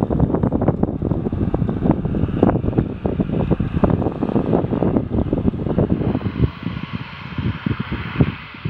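Wind buffeting the microphone in heavy, gusty rumbles that ease about six seconds in. Under the wind, a faint steady hum from the ATR turboprop's engines as the aircraft taxis in the distance.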